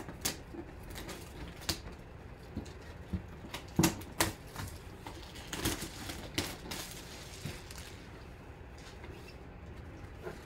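Plastic shrink wrap being torn and crinkled off a cardboard box, in scattered crackles and knocks. It is busiest from about four to seven seconds in.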